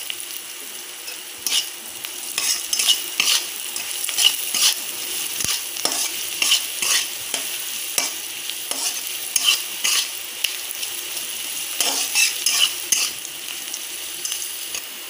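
Chopped onions and chilli frying in hot oil in a kadai, sizzling steadily, while they are stirred, with irregular scrapes and knocks of the stirring utensil against the pan a few times a second.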